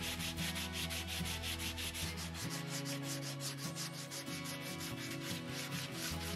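Sandpaper rubbed by hand along a wooden scabbard core in quick back-and-forth strokes, about five a second: hand-sanding bare wood.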